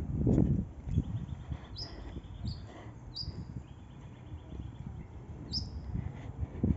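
Small birds chirping: several short, high chirps and a couple of trilled rattles, over low rumbling thumps that are loudest at the start.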